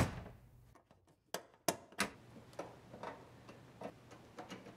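Steel breaker-panel cover knocking into place against the box with one sharp clank, followed by a few lighter metal clicks and then faint irregular ticks as its screws are driven back in with a screwdriver.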